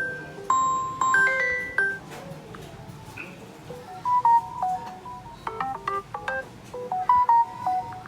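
A melody of short, ringing mallet-like notes, like a marimba or glockenspiel: a little figure played twice in the first two seconds, then after a pause a quicker run of notes from about four seconds in.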